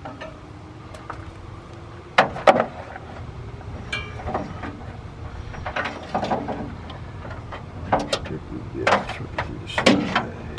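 Irregular metallic clanks, clicks and knocks from hands working at a truck's battery, hooking up a battery charger: two sharp clanks about two seconds in and a run of them near the end.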